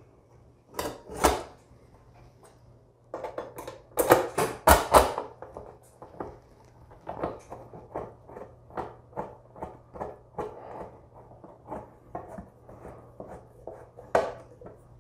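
Sheet-metal clatter and knocks as a bathroom exhaust fan's motor assembly is pushed into its ceiling housing, loudest about four to five seconds in. This is followed by a long string of small, fairly regular clicks as it is worked into place with a hand screwdriver.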